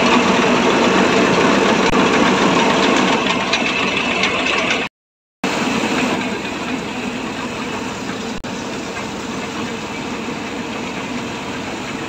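Engine-driven carrot washing machine running steadily, its water pump and rotating mesh drum turning. The sound breaks off for half a second about five seconds in and comes back somewhat quieter.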